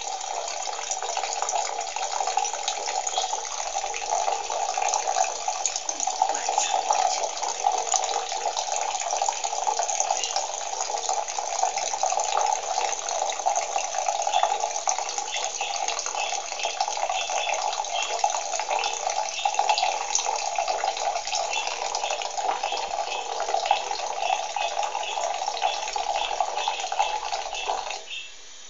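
Tap water running steadily into a bathroom sink, splashing around a budgerigar bathing under the stream, and cutting off suddenly just before the end. Short high budgie chirps come through over the water in the second half.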